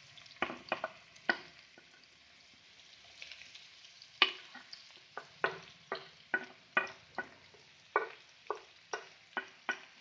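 Wooden spatula knocking and scraping as chopped onions are pushed off a plate into hot oil in a kadai: a few sharp knocks at first, then, from about four seconds in, knocks about twice a second. A faint sizzle of the onions frying in the oil runs underneath.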